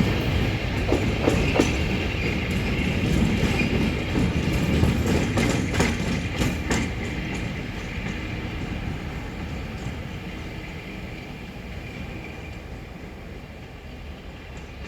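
Railhead treatment train hauled by Class 69 diesel locomotives, with EMD 710 engines, pulling away and receding: low engine rumble and a run of wheel clicks over rail joints in the first half, then growing steadily fainter as it moves off.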